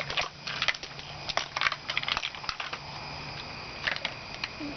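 Ice cubes clinking and clattering into a bucket: an irregular run of sharp clicks.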